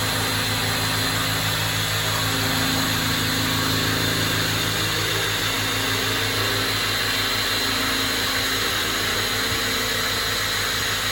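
Electric drill running steadily at high speed, a 6mm diamond-tipped bit grinding into polished porcelain tile, the drill being levelled off from its angled start into the groove.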